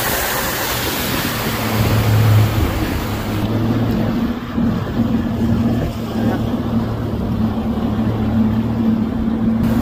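Force by Mercury 90 hp two-stroke outboard running at speed on a moving bass boat: a steady engine drone that comes up about two seconds in, under the rush of the churning wake and wind buffeting the microphone.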